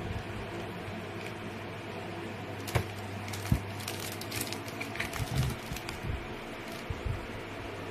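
Hard plastic collapsible storage rack being handled, giving scattered clicks and knocks of its plastic shelves, the sharpest about three and three and a half seconds in, over a steady low hum.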